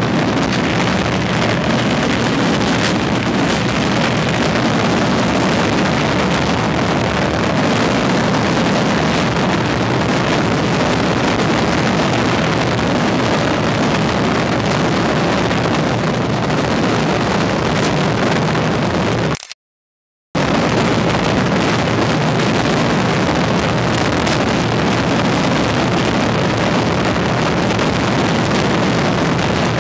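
Grucci fireworks barrage, shells and salutes bursting so fast that they merge into one loud, continuous crackling din. About two-thirds through, the sound cuts out completely for about a second, then resumes.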